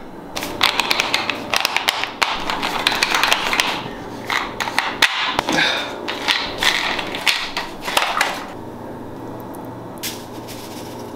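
A dense run of knocks and taps, thinning to a quieter hiss from about eight seconds in.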